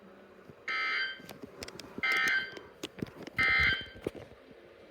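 Emergency Alert System end-of-message signal on NOAA Weather Radio: three short, harsh SAME data bursts a little over a second apart, closing the flood warning. Faint clicks sound between the bursts.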